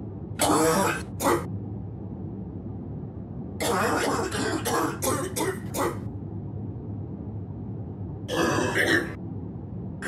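A person with bronchitis coughing in three fits: two coughs about half a second in, a run of about six quick coughs in the middle, and a couple more near the end.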